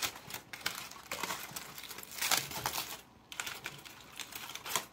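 Aluminium foil crinkling as fingers peel it open, in irregular runs of crackles, loudest a little past halfway.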